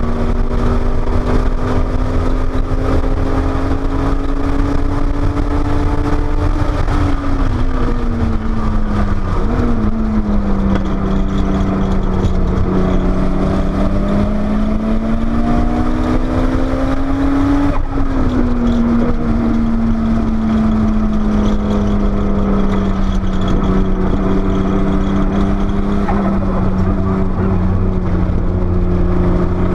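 Porsche 930 Turbo's air-cooled turbocharged flat-six running hard on track, its pitch holding, falling as the driver lifts, climbing for several seconds under acceleration, then dropping suddenly a little past halfway at a gear change. Heavy wind and road noise run underneath.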